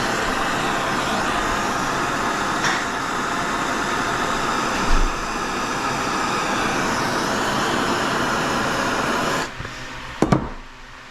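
Handheld torch flame burning steadily while heating a sprinkler fitting to soften its thread adhesive. The flame cuts off suddenly near the end, followed by a couple of sharp metal knocks.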